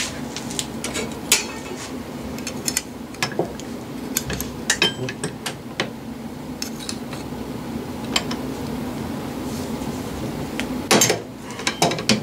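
Whitney hand-lever punch being worked to punch washers from sheet brass: scattered light metallic clicks and clinks, with a louder cluster of clicks about eleven seconds in, over a steady low hum.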